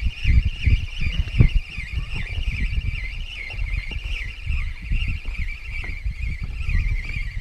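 Spinning reel being cranked as a small hooked fish is played to the boat, with a steady high wavering whine and wind buffeting the microphone in low irregular rumbles.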